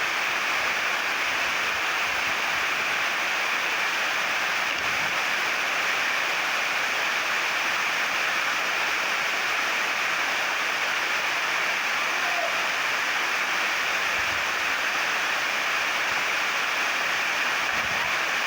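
Waterfall, a steady unbroken rush of falling water. A few faint low thumps sound under it.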